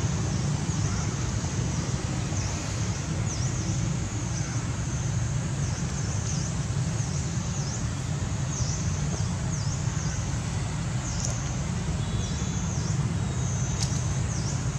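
Outdoor ambience: a steady low rumble under a run of short, high chirping calls, repeated about once or twice a second.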